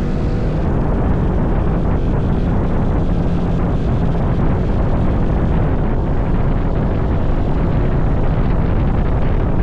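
A vehicle on the move: a steady engine drone under heavy rumbling wind noise on the microphone.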